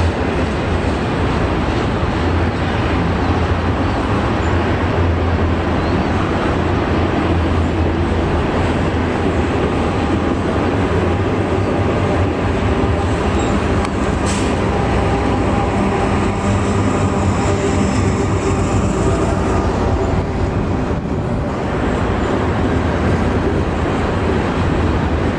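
Container freight train rolling past, a diesel locomotive in the middle of the train passing close by with a steady low engine drone over the continuous rumble of wheels on the rails.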